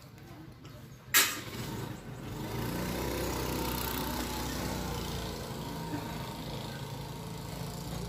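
A sharp click about a second in, then an engine starts running steadily about two seconds in, a low hum with a hiss over it.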